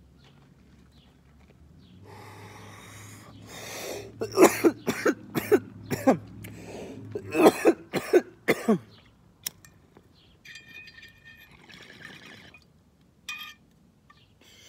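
A man coughing in a hard run of about eight coughs, from a hit of cannabis smoke off a glass bong. A soft breathy rush comes just before the coughs.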